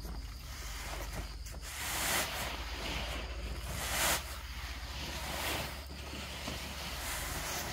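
Dry paddy rice and plastic tarpaulin rustling and hissing as a filled rice sack is handled and grain is raked, in several louder swells about two, four and five and a half seconds in.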